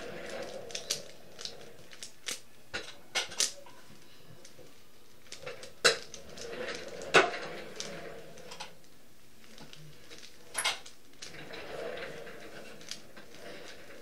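Plastic Rubik's-type puzzle cube being twisted by hand: irregular clicks and clacks as the layers turn, with a few sharply louder clacks about six, seven and ten and a half seconds in.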